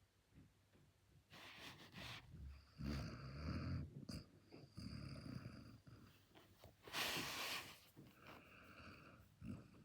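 Basset hound snoring in its sleep: a series of low snores, one breath after another, with a louder hissing breath about seven seconds in.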